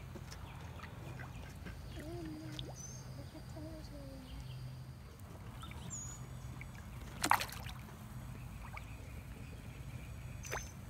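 Quiet shallow-water ambience over a low steady hum, with a few faint wavering calls in the first half. One sharp knock about seven seconds in, and a smaller one near the end.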